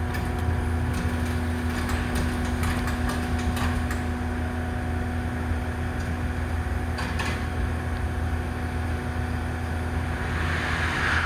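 E001 series Train Suite Shiki-shima pulling out at low speed: a steady running hum with a steady tone, and clusters of short clicks about a second in and again about seven seconds in.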